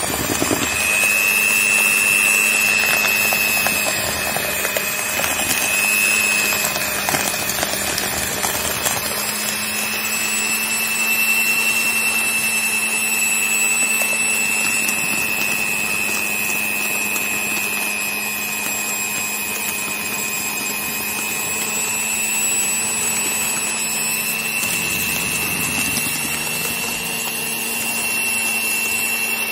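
Electric hand mixer running at steady speed with a high motor whine, its beaters whisking cake batter in a plastic bowl.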